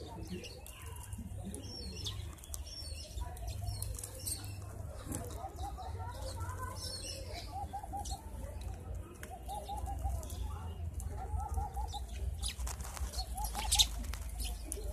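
Doves cooing in repeated short phrases of quick notes, with sparrows chirping over them and a sharp flap or knock near the end.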